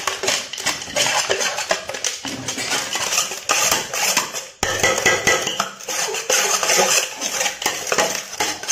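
Metal spoon stirring and scraping around a large metal bowl, mixing chopped vegetables and peanuts: continuous irregular scraping and clinking, with a brief pause about four and a half seconds in.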